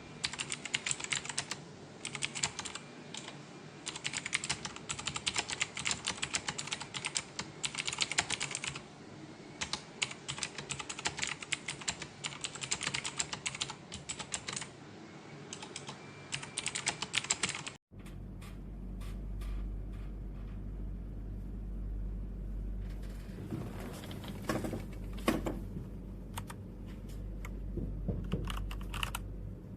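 Typing on a Royal Kludge RK918 mechanical keyboard: fast runs of key clicks with short pauses between them. About two thirds of the way through, the sound changes to sparser keystrokes over a steady low hum.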